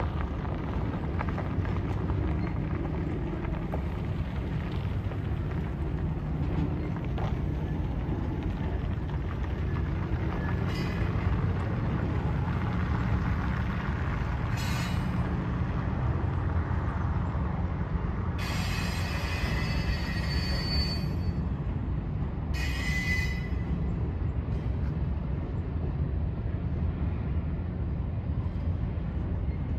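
Double-stack intermodal freight train rolling slowly across a steel girder bridge: a steady low rumble of wheels on rail joints and deck. A high wheel squeal rings out for about three seconds past the middle and again briefly a little later.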